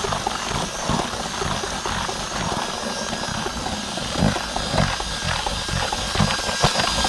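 Cordless drill fitted with a paddle mixer running steadily, stirring dry groundbait powder in a plastic bucket before the mix is wetted.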